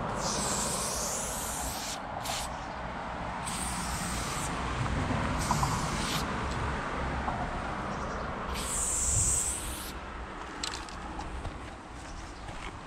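Aerosol spray paint hissing out through a Montana Level 6 fat cap in about five separate bursts of one to two seconds each, with short pauses between strokes.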